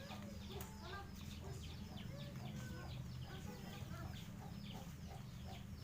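Chickens calling: a rapid run of short, high, falling peeps, about four a second, with lower clucks among them, over a steady low hum.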